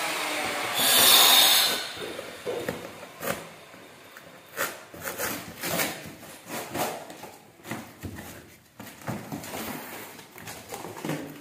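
Packing tape being ripped off a cardboard box in one loud, hissing pull about a second in, followed by cardboard rustling, scraping and tapping as the box is handled and its flaps opened.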